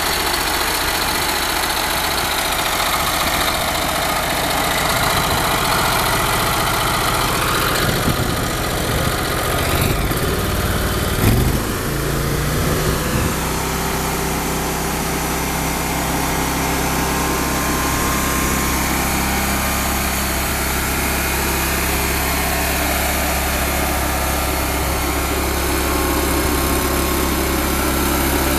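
Vermeer SC372 stump grinder's Vanguard 35 hp V-twin petrol engine running steadily. Its speed shifts about a third of the way through, with a brief knock, then it runs steady again.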